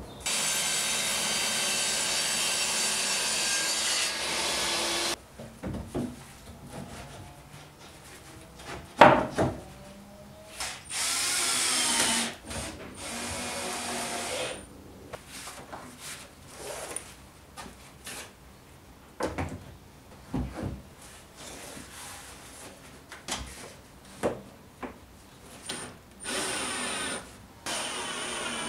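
Handheld power tool running steadily for about five seconds, then scattered knocks and taps of workshop handling, with shorter bursts of a power tool that speeds up and slows down, one about eleven seconds in and another near the end.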